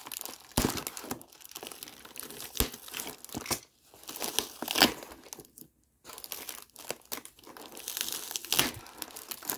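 Packing tape on a cardboard box being slit with a utility knife and picked and peeled by hand: irregular crinkling, scraping and tearing, with a short pause a little past halfway.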